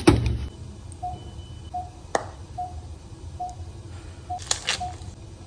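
Operating-room equipment beeping: short, same-pitched beeps at a steady pace, about one every 0.8 seconds. A thump at the very start and a few clicks and rustles come from syringes and supplies being handled at a drawer cart.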